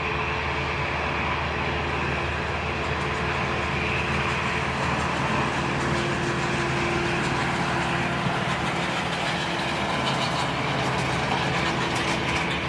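Airbus A320's twin jet engines running steadily, an even rushing noise with a held whine over it.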